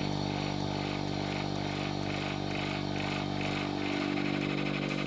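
Vacuum pump switched on moments before, running with a steady motor hum as it pumps the air out of the chamber.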